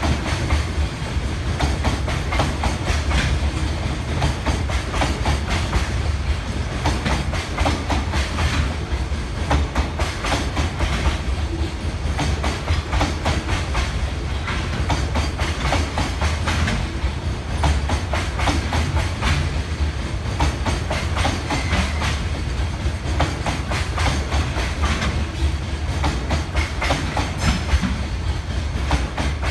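Container wagons of a freight train rolling past, their wheels clacking over the rail joints again and again above a steady low rumble.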